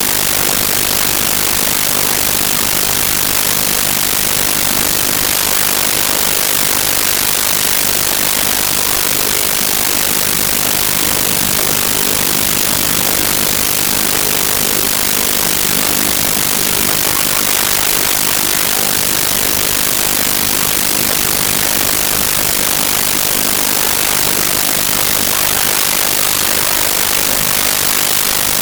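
Loud, unbroken hiss like static, hissier in the highs than in the lows: a fault in the recording's sound that drowns out everything else.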